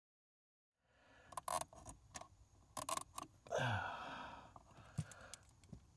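Nylon zip ties being fed and pulled tight, scattered small plastic clicks with one longer rasping zip about three and a half seconds in.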